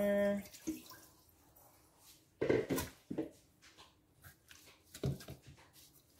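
Water poured from a container into the steel inner pot of an electric pressure cooker, splashing and dripping. This is followed by scattered clicks, scrapes and rubs as hands and a fork work seasoning into raw chicken in a ceramic bowl.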